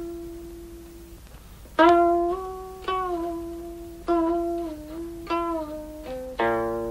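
Background music: a solo plucked string instrument playing a slow melody of single notes, each ringing out and fading, some bending slightly in pitch. The first new note comes about two seconds in, after a held note dies away.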